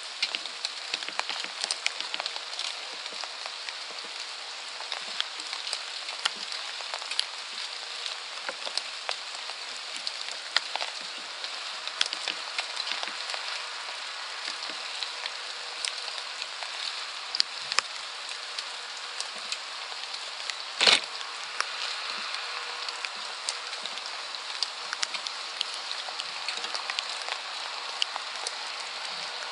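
Steady rain, with scattered drops ticking close by and one sharper knock about two-thirds of the way through.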